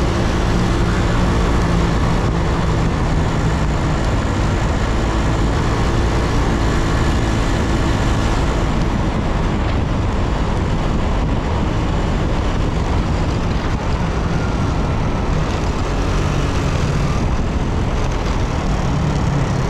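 Yamaha Cygnus X 125 cc single-cylinder scooter engine running under way, under a steady loud rush of wind and road noise. The engine's pitch stands out at the start and near the end, and is mostly buried in the rush in between.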